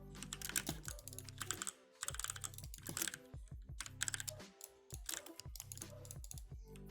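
Typing on an E-Element Z88 75% mechanical keyboard: fast runs of clacking keystrokes, broken by brief pauses about two seconds and three and a half seconds in.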